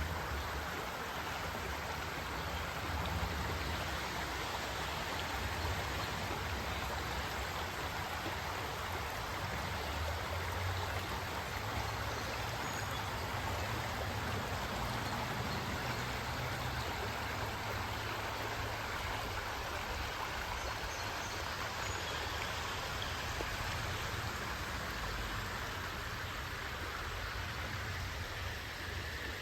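Steady rush of a stream flowing.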